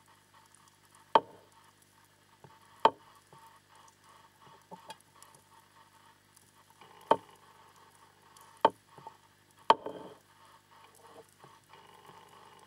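Underwater recording: a faint, steady crackle with five sharp knocks scattered through it, the first a little over a second in and the last about two thirds of the way through.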